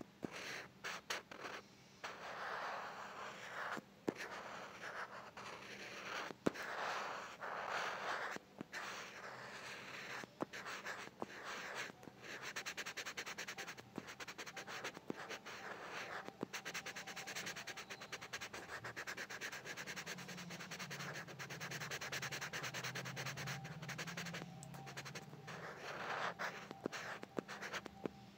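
Pencil scratching on textured paper in short separate strokes, then a long stretch of rapid back-and-forth scribbling while a shape is filled in black.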